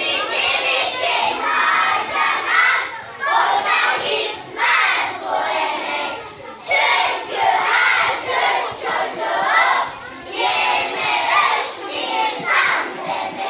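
Children's voices in unison, a group chorus going phrase by phrase with short breaks between phrases.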